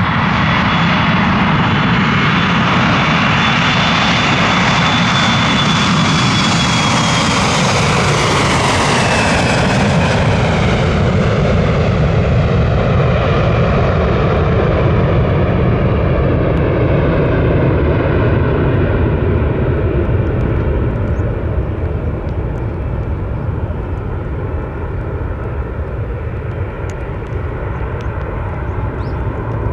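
Twin-engine jet airliner at takeoff power, loud jet engine roar with a high fan whine that peaks and then falls in pitch as the aircraft passes, about nine seconds in. After that the roar slowly fades as it climbs away.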